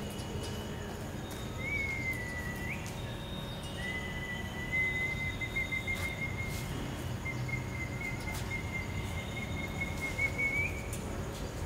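Puppy whining: a thin, high whine, short at first, then a long wavering one from about four seconds in that rises at its end, over steady background noise.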